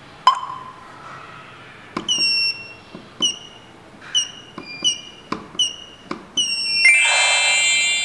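Wireless alarm keypad beeping as its keys are pressed: a string of short electronic beeps, each with a slight downward slide at the start, and a faint click with each press. A single touch-screen beep sounds just before them. About seven seconds in, a louder, longer confirmation tone of several tones sounds as the hub learns the keypad.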